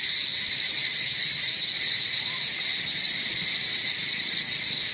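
Steady chorus of insects, a continuous high-pitched buzz that does not change.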